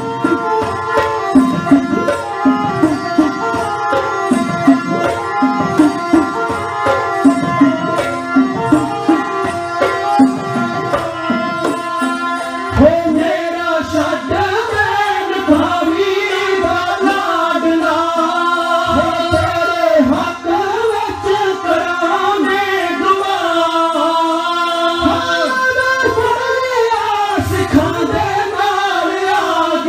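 Dhadi music: two dhadd hourglass drums beaten in a quick rhythm while a sarangi plays. From about thirteen seconds in, voices sing over the sarangi, with the drums lighter underneath.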